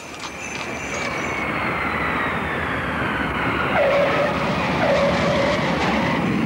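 Twin-engine jet airliner landing: steady jet noise with a whine slowly falling in pitch. The main-gear tyres squeal briefly twice as the wheels touch down, about four and five seconds in.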